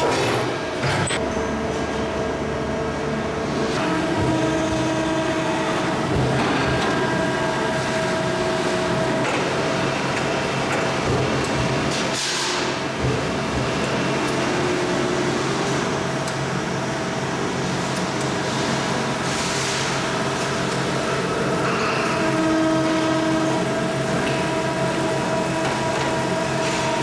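Metalworking factory floor noise: a continuous machinery rumble with several steady tones that come and go, and a couple of brief swishing sweeps.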